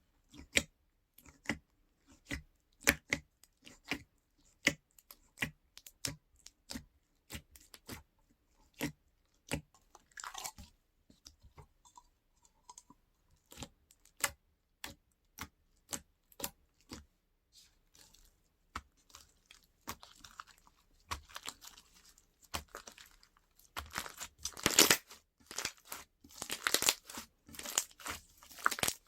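Crunchy slime being squeezed and pressed by hand, giving sharp popping clicks about two a second. Near the end it breaks into denser, louder crackling and crunching.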